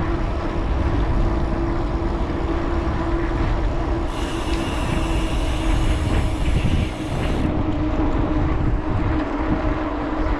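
Wind buffeting an action camera's microphone on a bicycle riding at about 14 mph, with a steady hum underneath.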